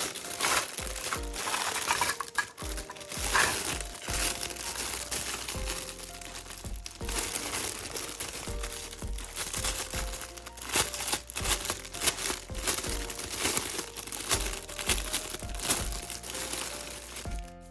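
Plastic packaging crinkling and rustling in many short crackles as toy accessories are unwrapped, over background music.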